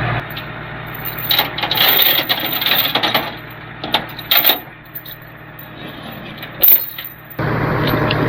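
Metal clinking of recovery rigging being handled: several sharp, separate clinks and clanks. A vehicle engine idles underneath at the start and starts up loud again near the end.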